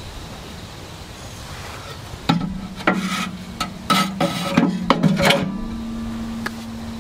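Metal objects being handled: a quick series of clanks and scrapes starting about two seconds in, several of them leaving a short metallic ring.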